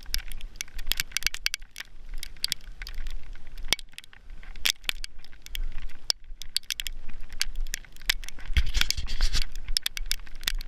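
Heavy snowfall crackling and ticking close to the microphone, dense and irregular, over a low rumble, with a louder crunching stretch near the end.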